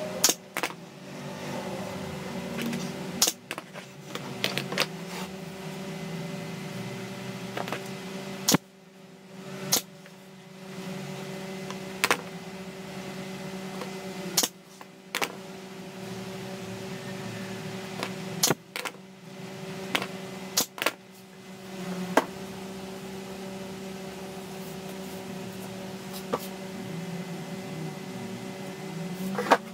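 Pneumatic brad nailer firing brads into wooden strips: about fifteen sharp shots at irregular intervals, sometimes two in quick succession, over a steady low machine hum.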